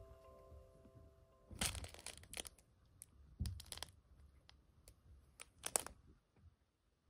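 A cloth fish cat toy crinkling and rustling in three short bursts as it is jiggled and batted by a cat's paw. A held chime note fades out over the first second and a half.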